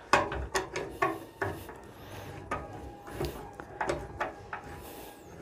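Screwdriver turning the pivot screw of a cast-iron sewing machine treadle pedal as it is tightened onto a new bearing: a run of irregular clicks and scrapes of metal on metal.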